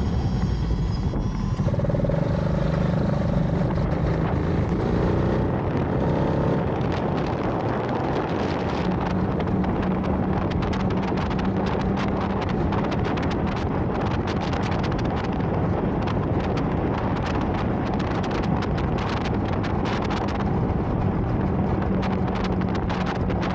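Motorcycle running at speed, engine hum steady under heavy wind buffeting on the microphone.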